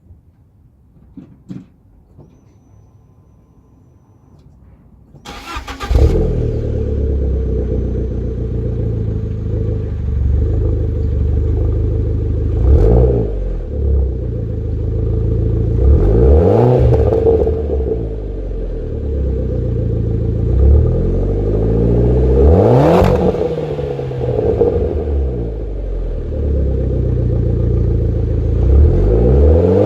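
Fiat Bravo T-Jet's 1.4 turbocharged four-cylinder petrol engine is cranked and catches about five seconds in. It then idles through the exhaust, with four short revs that rise and fall back to idle.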